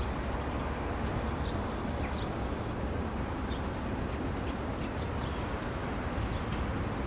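City ambience: a steady wash of distant traffic noise, with birds chirping faintly now and then. A thin, high, steady tone sounds for under two seconds about a second in.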